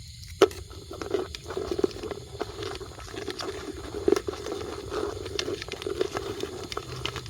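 Close, irregular rustling and crackling with many small clicks, after one sharp click about half a second in.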